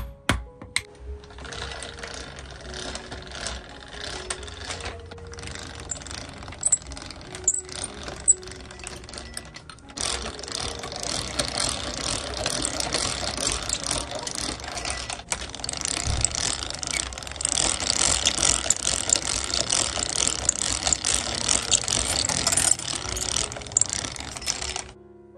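Jeweller's rolling mill running, its gears and grooved steel rollers clattering and rattling as a gold bar is rolled down into wire; the sound gets louder about ten seconds in and stops just before the end. A few sharp hammer strikes on the steel block ring out right at the start.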